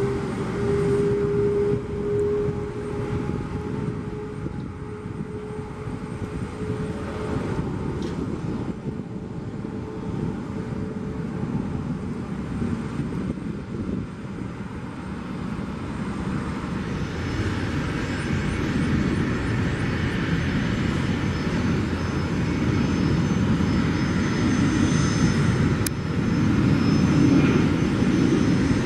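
Twin turbofan jet engines of an Embraer E-Jet freighter running at low thrust as it rolls past, with a steady whine in the first few seconds that fades. The engine noise grows louder through the second half.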